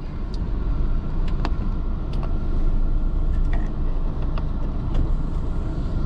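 Car interior noise while driving slowly: a steady low rumble of engine and tyres on the road, with a few faint ticks.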